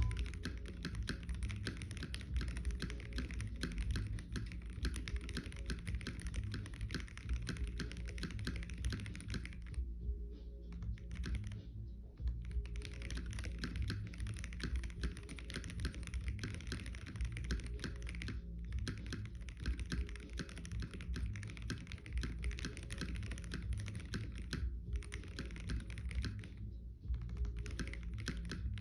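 Typing on an Acid House D60Lite mechanical keyboard with Epbt keycaps and Lavender switches spring-swapped to 58g: a steady stream of keystroke clacks with a few brief pauses.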